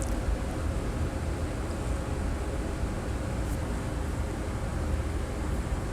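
Steady low background rumble with a faint constant hum, a machine-like room noise without clear strokes or knocks.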